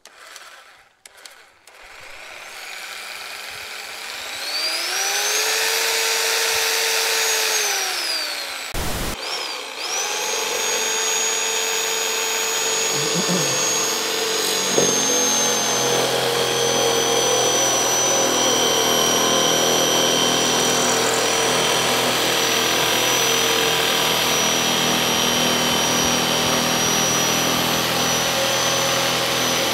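An electric power saw motor spins up with a rising whine, runs steadily, then winds down and stops about nine seconds in. It starts again about a second later and runs on steadily. It is being used to cut up pieces of old wooden furniture.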